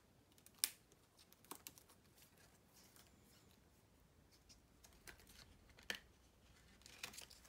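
Near silence broken by a few faint clicks and scrapes of plastic: a sleeved trading card being slid into a rigid plastic card saver. The sharpest click comes about half a second in.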